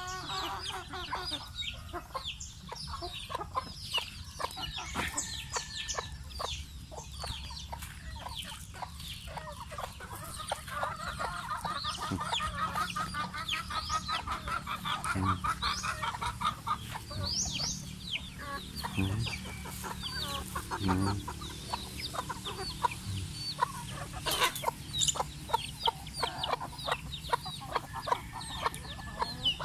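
A flock of chickens clucking and chirping, with many short clicks throughout.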